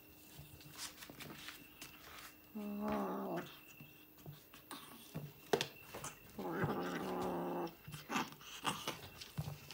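Kitten growling over food held in its paws, two low drawn-out growls about three and a half seconds apart, the second longer, a warning to keep off its food. Scattered small clicks and taps between them.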